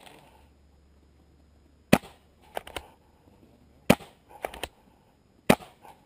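Paintball marker firing three single shots, roughly two seconds apart, each a sharp pop, with fainter pops in between.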